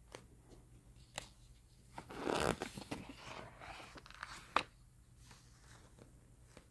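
Pages of a paper book being handled and turned, with a rustle of paper lasting a couple of seconds and a few sharp clicks and taps, the loudest about four and a half seconds in.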